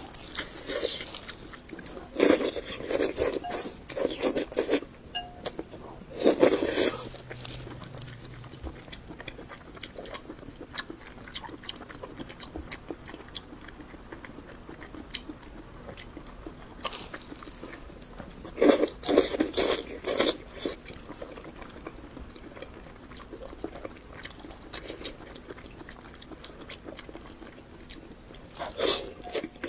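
Close-miked chewing and biting of pig's large intestine, in several bouts of a few seconds each with quieter stretches between.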